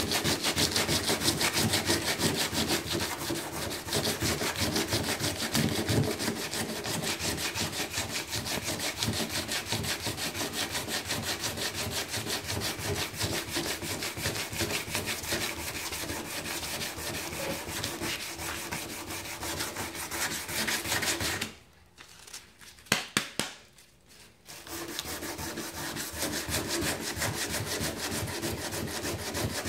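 80-grit sandpaper rubbed back and forth by hand over the blistered paint of an aluminium Ford Mustang hood, scraping away flaking paint and corrosion in rapid strokes. About two-thirds through the sanding stops for a few seconds, broken by a couple of sharp taps, then starts again.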